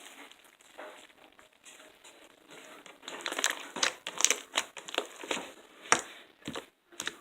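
Homemade glue-and-borax slime being squeezed and pressed by hand, giving irregular sticky clicks and crackles that grow busier about halfway through.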